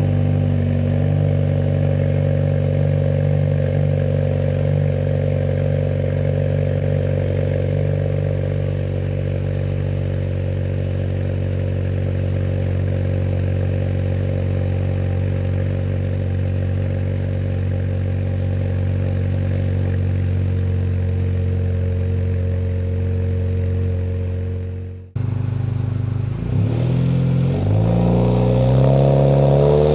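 2022 Honda Civic Sport's 2.0-litre four-cylinder engine, breathing through a Function Werk dual exhaust, idling steadily on a cold start just after firing up. Near the end, after a brief break, the engine is revved a few times, rising and falling in pitch.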